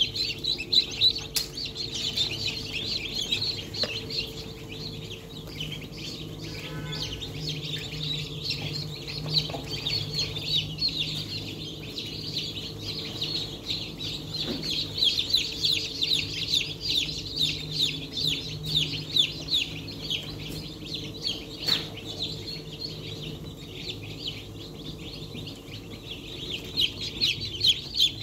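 Dozens of newly hatched domestic chicken chicks peeping continuously, many high-pitched cheeps overlapping, over a steady low hum.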